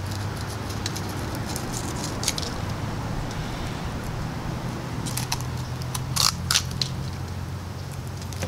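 Fillet knife slicing through the tough skin and flesh of a jack crevalle, heard as scattered short crackling cuts, a cluster of them about two seconds in and more around five to six seconds in. Underneath is a steady low hum.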